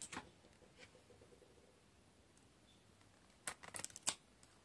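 Mostly quiet, with a faint click at the start and a short cluster of small clicks and crackles about three and a half seconds in, as a small piece of sticky tape is pressed onto a folded cardstock model piece.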